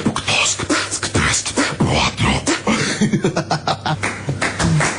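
A person beatboxing: rapid mouth percussion of clicks and pops mixed with voiced hums and bending vocal pitches, with a fast run of clicks about three seconds in.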